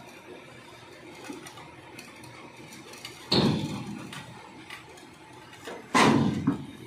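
Kobelco crawler excavator running steadily, with two heavy thuds about three seconds apart, the second a little louder, as the machine shifts and tips over the edge of the trailer.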